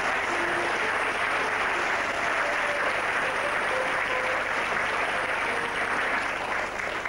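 Audience applauding steadily, a dense even clapping that dies away near the end.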